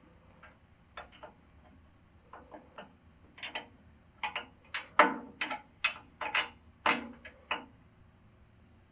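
Wrench clicking and clinking on a lathe leveling screw's locking nut as it is tightened down: a string of short, sharp metallic clicks, sparse at first, then about two a second through the middle, stopping near the end.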